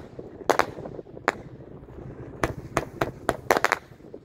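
Winda 'Pulse Pounder' 200-gram, 50-shot report cake firing: its rising tails end in about ten sharp report bangs, spaced irregularly and coming faster in the second half.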